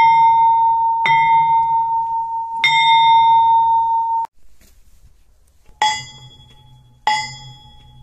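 A rail vehicle's large cast warning bell being rung, with a clear struck strike followed by a ringing tone each time. Three strikes ring on almost without fading, and then the sound cuts off abruptly about four seconds in. After a short gap the ringing resumes, with a strike about every second and a bit, each dying away more quickly.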